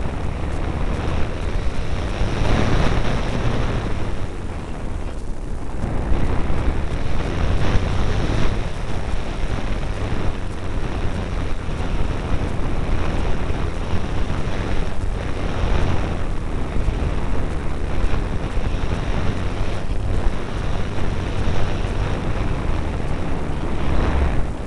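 Onboard sound of an E-flite Apprentice electric RC airplane in flight: wind rushing over the small camera's microphone, mixed with the drone of the plane's motor and propeller. The noise is loud and fairly steady, easing briefly about five seconds in as the plane turns.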